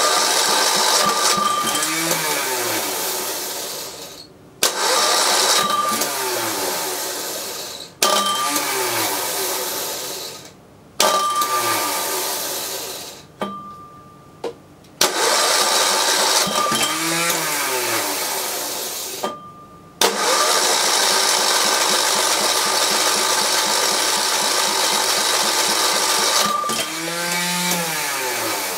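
Nigata NGT5 diesel generator cranked by its electric starter in about seven separate attempts. Each starts suddenly, its pitch rises then falls, and it dies away; the last attempt runs about eight seconds. The starter is misbehaving despite new bushings, and the owner suspects it is the wrong starter for the engine.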